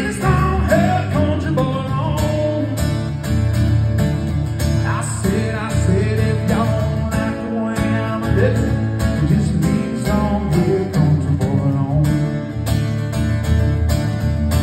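Solo steel-string acoustic guitar strummed in a steady rhythm, playing a country tune.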